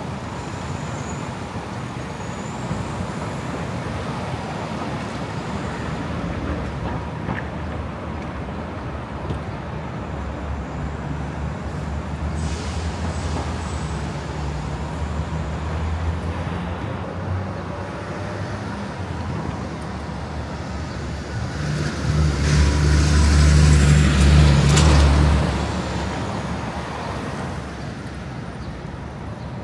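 City street traffic: vehicle engines running and passing steadily. About 22 seconds in, a heavy vehicle's engine rumble grows loud for a few seconds, with a high hiss, then fades.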